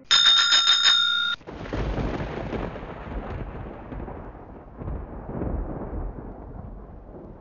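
A loud, steady electronic tone of several pitches lasts about a second and a half, then cuts off abruptly. A long, low rolling rumble follows, swelling a few times and slowly fading, like a thunder sound effect.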